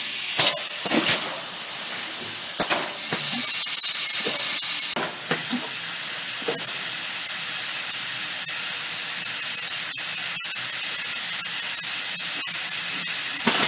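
Thermoformer (vacuum forming machine) in the cooling stage of its cycle: a steady hiss of rushing air, louder for about the first five seconds, then settling. Scattered clicks and knocks sound through it.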